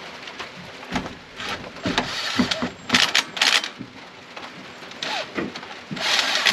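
Socket ratchet wrench clicking in quick bursts, once about three seconds in and again, longer, near the end, with a few sharp metal knocks from tools and parts before it.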